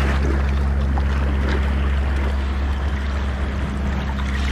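Ocean surf surging and washing over rocks, with a constant low rumble underneath.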